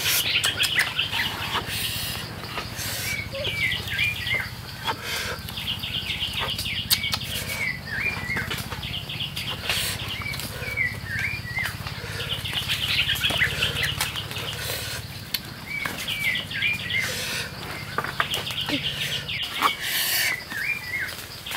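Sticks and cassava roots being handled and laid on a campfire: scattered sharp clicks and snaps from the wood. Behind them come repeated short high chirps and bouts of fast trilling, and a low steady rumble that drops away near the end.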